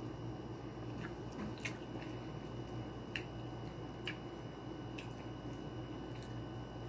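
Someone chewing juicy pomelo flesh with wet mouth sounds, a few short sharp clicks scattered through.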